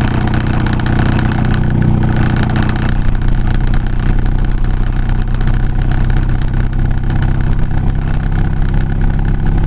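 Vehicle engine running steadily under way, with a steady low engine hum and road noise heard from inside the cab.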